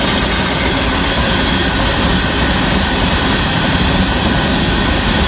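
Union Pacific freight train of hopper cars rolling past, a loud, steady rumble and roar of wheels on rail.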